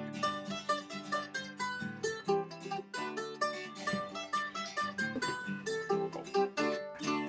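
Instrumental background music: a quick tune of rapidly picked plucked-string notes over a lower accompaniment.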